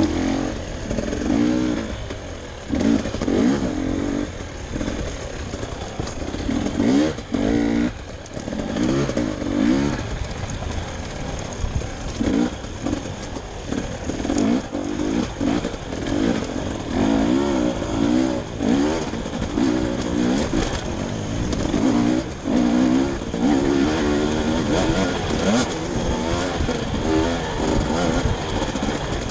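Dirt bike engine ridden up close, revving up and down over and over as it works along a rocky off-road trail, its pitch rising and falling every second or so.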